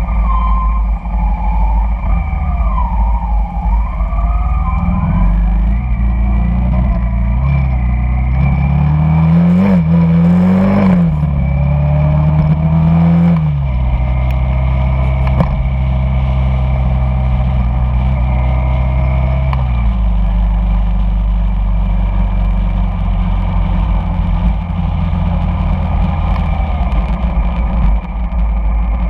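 Honda Shadow cruiser's V-twin engine running under way in city traffic. Its note climbs about a third of the way in, holds, then drops back in steps.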